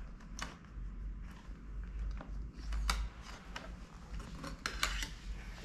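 Small irregular clicks and taps of an eyeshadow palette and make-up brush being handled, over a low steady hum; the sharpest clicks come a little before three seconds in and again near the end.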